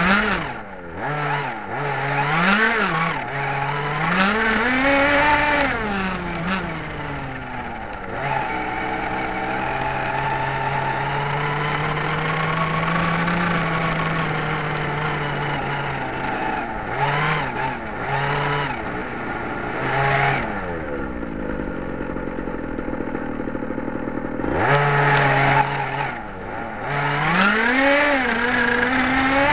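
Small engine of a radio-controlled buggy, heard from its onboard camera, revving up and down repeatedly as it drives over grass. In the middle it holds a steadier, near-constant pitch for several seconds, then it drops low and revs sharply again near the end.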